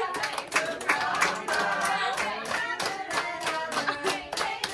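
A small group of people singing together while clapping their hands in a steady rhythm.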